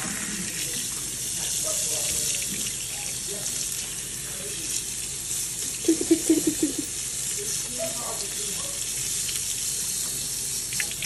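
Faucet running steadily into a sink, its stream pouring onto a wet capuchin monkey and the basin. About six seconds in, a brief run of short, low pitched sounds stands out as the loudest thing.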